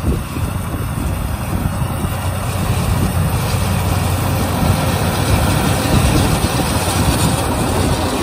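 Yanmar YH 850 rice combine harvester running steadily while cutting rice: diesel engine hum together with the clatter and rush of the cutter bar and threshing drum, growing a little louder as the machine approaches.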